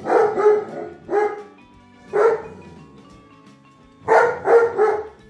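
Dog barking in short bursts, about seven barks: a pair at the start, single barks about one and two seconds in, and a quick run of three near the end. The dog is barking at an inflatable snowman that is deflating.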